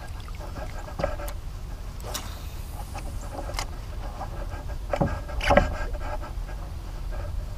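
Fishing reels being cranked as lures are retrieved from a small boat, with short knocks and clicks of rods and gear against the boat, over a steady low rumble. The loudest are two knocks close together about five seconds in.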